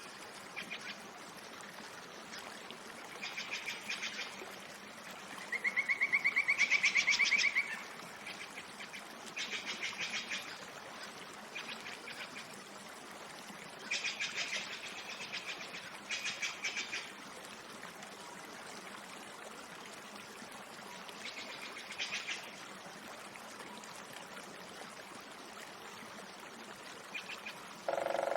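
Forest ambience of repeated short, fast-pulsed trilling calls from wild animals, about seven bursts of a second or so each. The loudest and longest comes about six seconds in. Between the calls there is a faint steady hiss.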